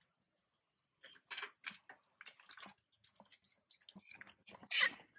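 Macaques squealing and giving shrill screechy calls, loudest about four to five seconds in, after a run of quick short sounds.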